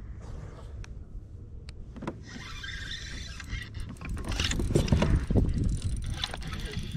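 Spinning reel cranked quickly, a whirring hiss from its gears and line, starting about two seconds in. From about four seconds, loud rubbing and knocks as a fleece sleeve brushes the camera microphone.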